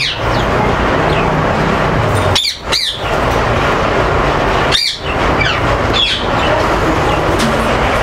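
Caged parrots calling: several short, shrill calls, about two and a half seconds in, near five seconds and around six seconds, over a steady background noise.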